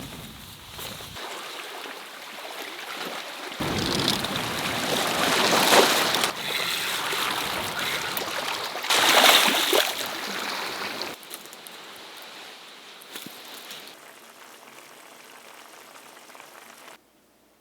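Sea waves washing over a rocky shore, with two louder surges of water, one about four seconds in and one about nine seconds in. The sound cuts off suddenly near the end.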